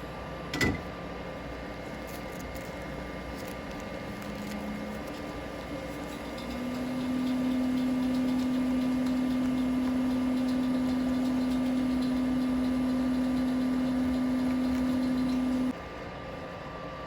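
Hot air rework station blowing to reflow solder paste on a stencil: a steady hum that comes up about six seconds in and cuts off suddenly near the end, over a constant background hum, with a sharp click about half a second in.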